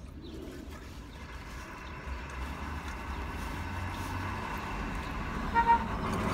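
Delivery truck approaching along the street, its engine and tyre noise getting steadily louder, with a brief horn toot near the end.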